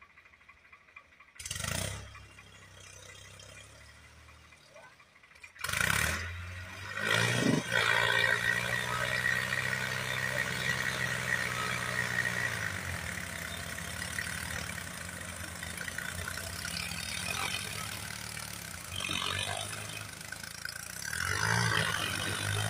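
New Holland tractor diesel engines coming up to high revs about six seconds in and running hard under load, trying to drag a heavily loaded trailer out of deep mud.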